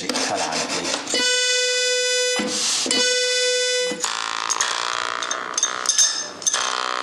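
Accordion reed sounding a steady single note, twice for about a second each, broken by the rasp of a file scraping the reed tongue: the reed is being filed to tune it. About four seconds in, a lower reed note with many overtones takes over, with scattered clicks.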